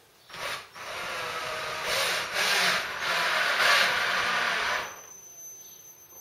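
Cordless drill driving a screw through a plaster ceiling rose into a wooden ceiling joist: a short burst, then about four seconds of the screw running in under load before it stops.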